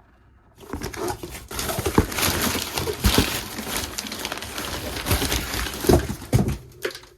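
Rustling and crinkling of packaging and parts being handled, with scattered small knocks. It starts about a second in and stops shortly before the end.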